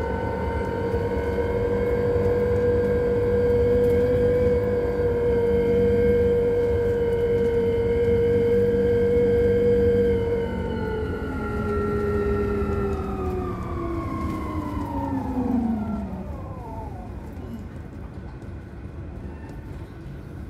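Electric vehicle's drive motor whining at a steady pitch over road rumble while driving. About halfway through the whine drops a little, then glides down in pitch and fades over a few seconds as the vehicle slows.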